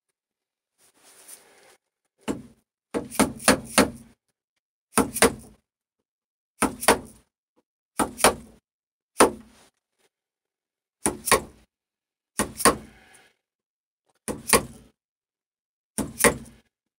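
Mallet striking a bench chisel set in a knifed line in birch: a series of sharp taps, often in quick twos and threes, every second or two. The chisel is chopping the shoulder line of a lap joint deeper.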